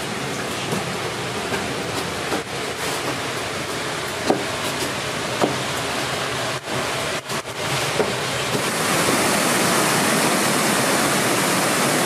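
Steady rush of the Great Falls of Tinkers Creek, first heard from inside the stone tunnel with a few faint taps, then louder and fuller from about two-thirds of the way in.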